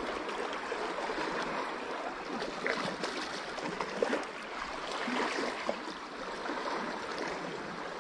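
Small sea waves lapping and gurgling against shoreline rocks: a steady wash of water with little irregular splashes.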